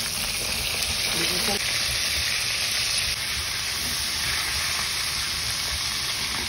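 Egg-and-flour-coated chicken pieces deep-frying in hot oil in a pot, making a steady, dense sizzle.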